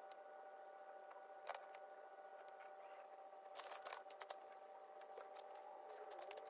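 Near silence: quiet room tone with a faint steady hum and a few light clicks, a short cluster of them about three and a half seconds in.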